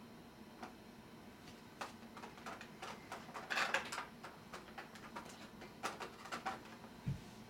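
Light clicks and rustling from small toy parts and their packaging being handled and rummaged through, busiest about three and a half seconds in, with a single dull thump near the end.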